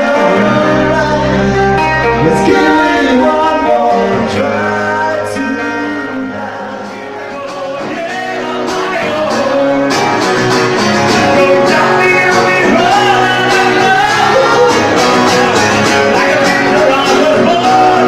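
Band playing a rock cover song with singing over guitar; the music dips in loudness a few seconds in, then comes back fuller and more driving.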